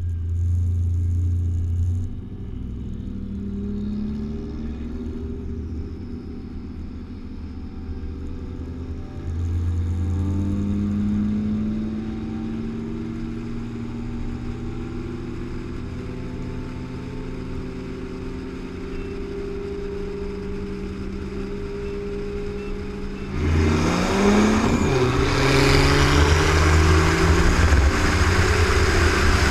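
Car engines running at steady cruising speed with a couple of brief throttle rises. About 23 seconds in they go to full throttle, suddenly much louder, the pitch rising and stepping down at a gear change, with heavy wind and road noise: the launch of a 40 mph roll race.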